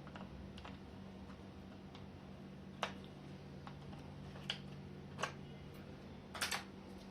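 Sparse small clicks and taps of laptop parts and a RAM module being handled: a few single clicks, then a quick double click near the end, over a steady low electrical hum.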